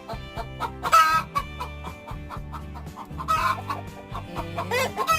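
Chickens clucking and squawking, with louder calls about a second in, around three and a half seconds in, and near the end, over background music with a steady beat.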